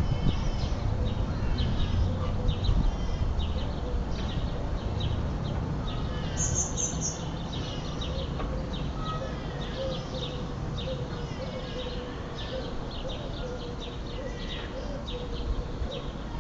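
Small birds chirping in quick, repeated short notes, with one brief higher call about six and a half seconds in, over a steady low background rumble.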